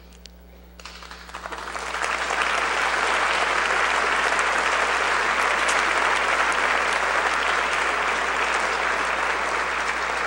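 Audience applauding: a few scattered claps about a second in, swelling quickly into steady applause.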